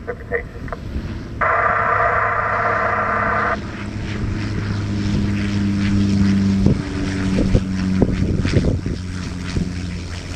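Saab 340's two turboprop engines and propellers droning as the plane passes low on its landing flare, a steady propeller hum with a stronger tone joining about five seconds in. A two-second buzzing burst comes about a second and a half in.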